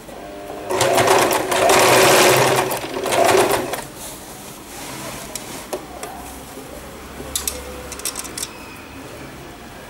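Usha Janome electric sewing machine stitching an invisible zip onto a lehenga seam in three short runs over about three seconds, then stopping. A few light clicks follow near the end.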